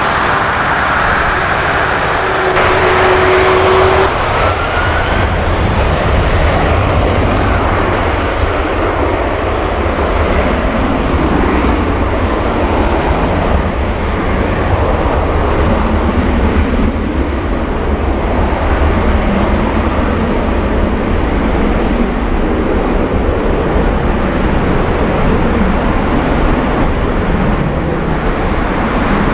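Airbus A330-300's twin General Electric CF6 turbofan engines running steadily as the airliner taxis past and away onto the runway: a continuous jet rumble with a high whine that fades out about two-thirds of the way through.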